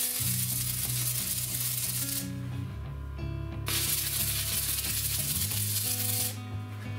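Electric arc welding of a steel tube onto a steel flange: two runs of crackling, sizzling arc about two and a half seconds each, with a pause of about a second and a half between them. The second stops shortly before the end.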